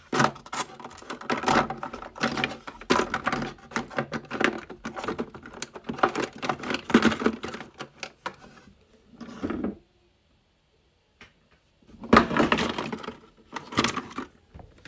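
Small hard plastic makeup containers clicking and clattering as they are rummaged through, with handling knocks on the phone's microphone. The sound cuts out completely for about a second and a half, about ten seconds in, then the clatter resumes.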